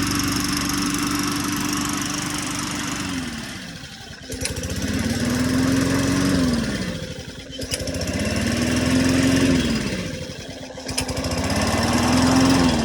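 Small lawn mower engine running after its carburetor was cleaned and a new gas tank fitted. It holds a steady high speed, then slows almost to idle and revs back up three times, about three seconds per swing, with a short click at each low point.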